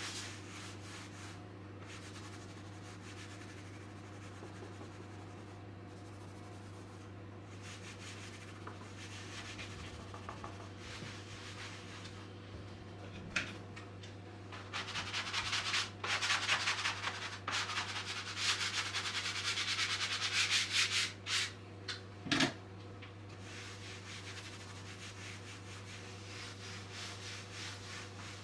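Fast back-and-forth scrubbing strokes for several seconds just past the middle, with a few clicks and one sharp knock right after; a steady low hum underneath.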